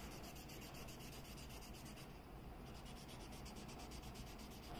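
Faint rubbing of a blending stump and pencil on drawing paper, shading and smoothing a sketch.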